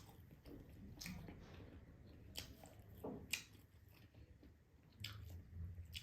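Close-mouthed chewing of ramen noodles, faint, with scattered wet smacks and clicks of the mouth.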